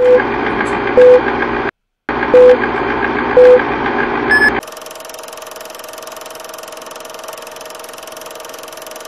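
Old-film countdown leader sound effect: a loud film-projector clatter with four short beeps about a second apart, cut out briefly after the second, then one higher beep. After about four and a half seconds it gives way to a quieter steady hum.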